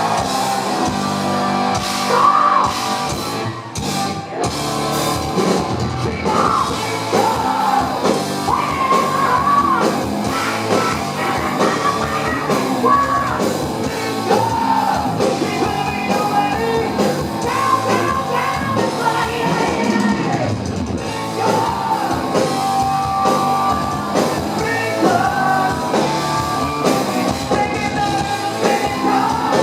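Live heavy metal band playing loud, with a male singer's high, yelling vocals over the band, as heard through the club's PA.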